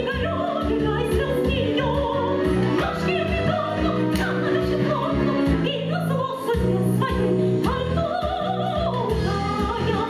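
Women singing an operetta number in operatic style, with wavering vibrato, over rhythmic instrumental accompaniment.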